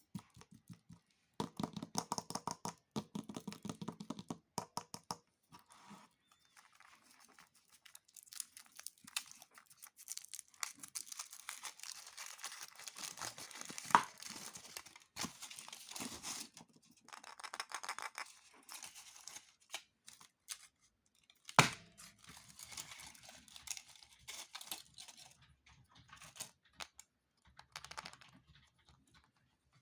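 Foil wrappers of Kinder Surprise chocolate eggs being crinkled and torn open by hand: stop-start rustling and tearing, with two sharp snaps, one near the middle and one about two-thirds through.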